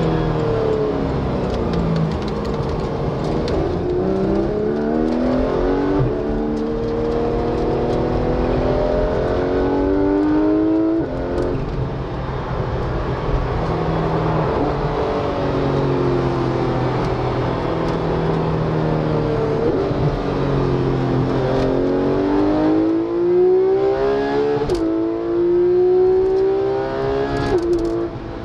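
Porsche 991 GT3 RS's naturally aspirated 4.0-litre flat-six accelerating: the engine note climbs in long rising sweeps and drops suddenly at a few points, the quick upshifts, before climbing again.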